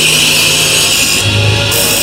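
Electronic background music with a steady noisy hiss. About halfway through, the hiss cuts out briefly while a deep bass note sounds.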